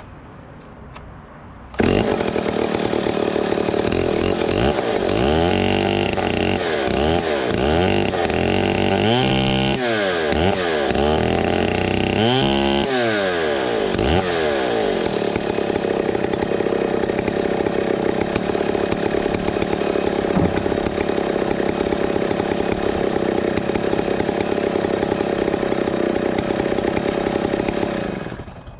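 Vintage STIHL 090 two-stroke chainsaw running with a 50-inch ripping chain: it comes in suddenly about two seconds in, is revved up and down several times, then runs steadily until it dies away near the end. It is a test run after repair, checking that the chain turns as it should.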